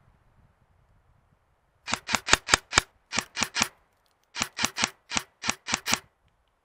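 Airsoft gun firing rapid single shots, about five a second, in two strings of seven or eight sharp cracks with a short pause between.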